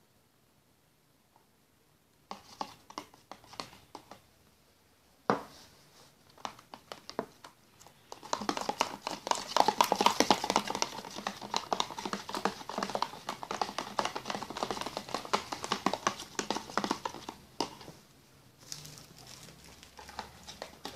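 Slime glue mixture with red food colouring being stirred in a clear plastic tub. Scattered sticky clicks and one sharper knock come first, then about ten seconds of dense, rapid clicking while it is mixed hard, thinning to a few clicks near the end.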